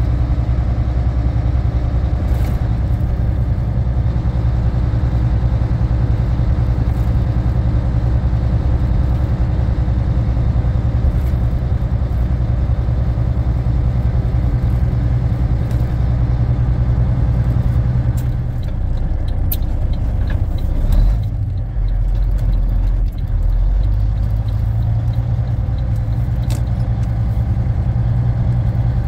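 Volvo VNL780 semi truck's diesel engine running with a steady low drone while the truck drives. A little past halfway the engine note dips and changes for several seconds, with a short knock, then steadies again.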